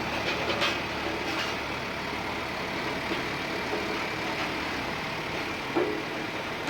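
Road roller's diesel engine running steadily with the drum vibration switched on, with a few short knocks, the sharpest near the end.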